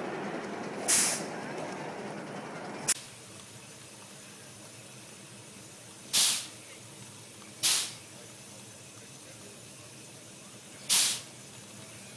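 Live-steam miniature railway locomotive letting out five short, loud hisses of steam a few seconds apart. In the first three seconds a steady rushing noise lies under them and then stops abruptly.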